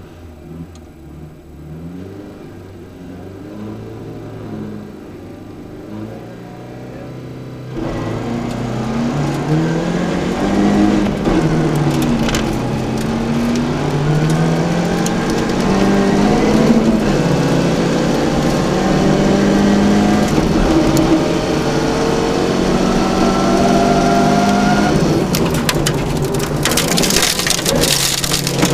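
Opel Ascona B rally car's four-cylinder engine heard from inside the cabin. It revs with the car held at the start for about eight seconds, then the car launches and the engine is driven hard, its pitch climbing and dropping again and again through the gear changes, with tyre and gravel noise under the car. Near the end comes a louder hiss of gravel.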